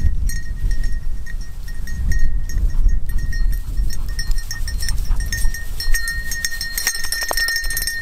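Dog bell on a German shorthaired pointer's collar jingling in quick, uneven rings as the dog runs through dry grass, getting louder and ringing almost without a break in the last few seconds as the dog comes close. Heavy wind rumbles on the microphone underneath.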